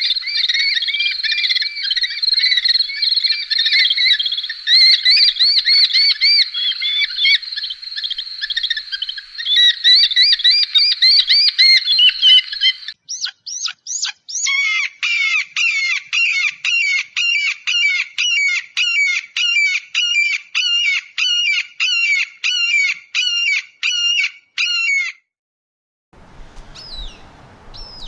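Birds calling: dense, high twittering for about thirteen seconds, then a run of evenly repeated calls, about two a second, for about ten seconds. After a short gap there are a few faint chirps over a background hiss.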